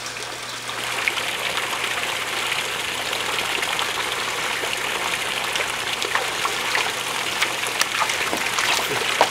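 Water gushing and splashing steadily, starting about a second in.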